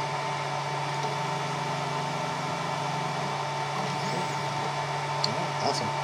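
Steady whirring machine hum with a faint high whine: a 3D printer and its fans running while the 3018 CNC's Z axis slowly lowers the spindle toward the touch probe during a probing cycle.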